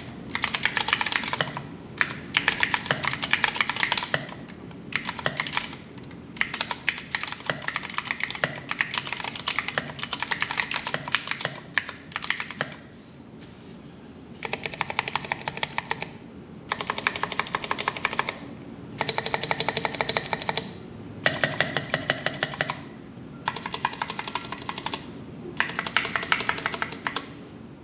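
Typing on a Vortex Poker3 mechanical keyboard with Cherry MX Brown switches and SA profile keycaps: steady bursts of keystroke clacks for the first half, then a run of very fast, even streams of keystrokes, each about a second and a half long, with short pauses between them.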